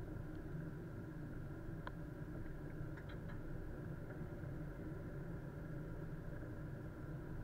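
Steady drone of a car's engine and road noise, with a few faint ticks about two to three seconds in.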